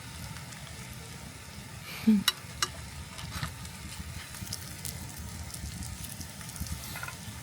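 Food sizzling in a pan with a steady hiss, with a few light clicks about two seconds in.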